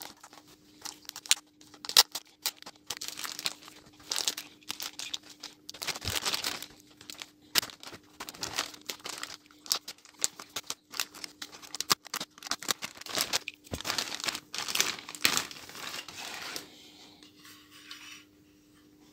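Clear plastic bag wrapping being torn open and crinkled by hand, in dense irregular crackles and rustles that die down near the end. A faint steady hum runs underneath.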